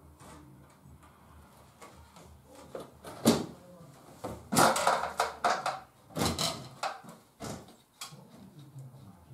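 New double-glazed window sash being handled and fitted into its frame: a string of knocks, bumps and clattering scrapes, loudest and busiest in the middle, as it is pressed and shifted into place.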